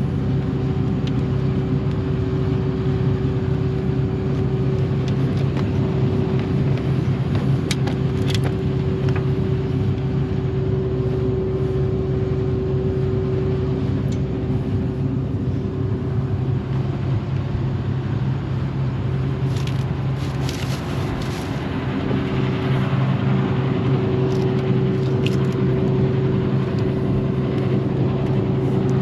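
Combine harvester's diesel engine running steadily at a constant speed, a continuous even drone, with a few faint clicks.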